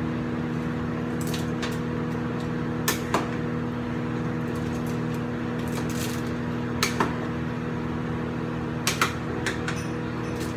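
Metal cooking utensil clicking against a pot while stirring noodles: short sharp clicks, mostly in pairs, every few seconds. Under it runs a steady electrical hum.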